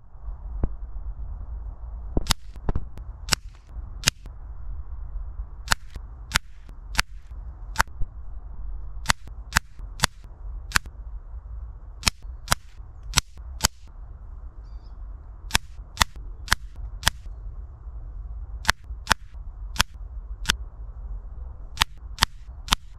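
A quick series of sharp cracks, one or two a second and often in close pairs, as air rifle pellets from an FX Impact M3 strike paper targets on a wooden post. A steady low rumble runs underneath.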